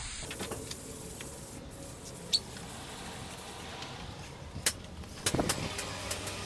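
Quiet factory workshop background: a low steady hum with a few sharp clicks and taps, and a short clatter of knocks near the end.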